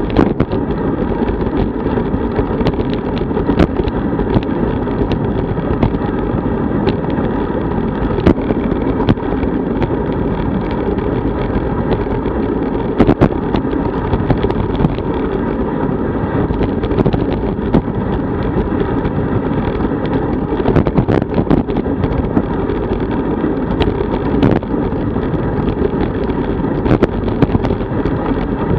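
Steady wind rush and road rumble on a road bike's onboard camera microphone at about 35 km/h, broken by frequent sharp clicks and knocks.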